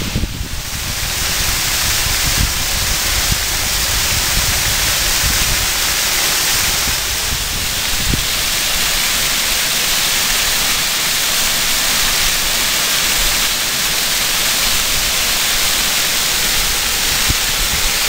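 Steady rushing hiss of water pouring down a partly frozen waterfall and its stream.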